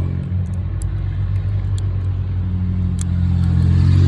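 A motor vehicle's engine runs nearby with a steady low hum that grows louder near the end, as if coming closer or revving. A few faint, light metallic clicks sit over it, likely from the lock pick working the pins.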